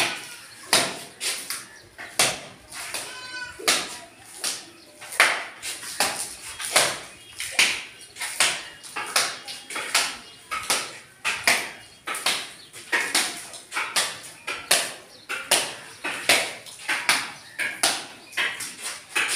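Mason's steel trowel working cement plaster: repeated scraping and slapping strokes, about one a second, as mortar is taken from a metal pan and thrown and pressed onto a concrete lintel edge and wall.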